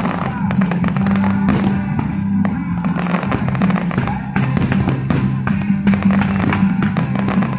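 Music with a steady bass line, with fireworks bursting and crackling over it: repeated sharp bangs from aerial shells throughout.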